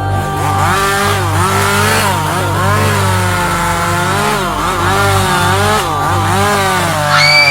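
Chainsaw engine running and being revved up and down over and over, its pitch rising and falling. A high, shrill held note joins near the end.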